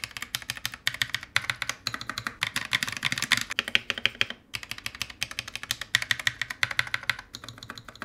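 Akko CS Rose Red linear mechanical keyboard switches being typed on rapidly in a hot-swap keyboard. The switches are stock and unlubed at first, then lubed after a brief break about halfway through.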